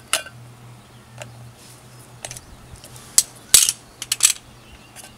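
Hand-crank can opener being turned to finish cutting open a can of sweet corn: a series of irregular metallic clicks and snaps, loudest about three and a half seconds in.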